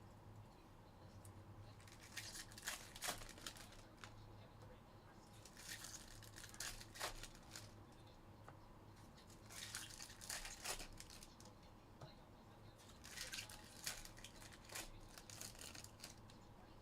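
Foil trading-card pack wrappers being torn open and crinkled in four short bouts a few seconds apart, faint, over a steady low hum.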